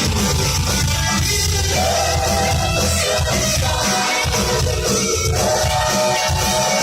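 Live rock band playing a worship song, with singing over a steady, loud full-band backing.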